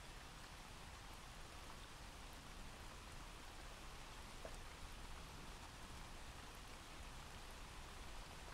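Faint, steady recorded rain played as background ambience, an even hiss of rainfall.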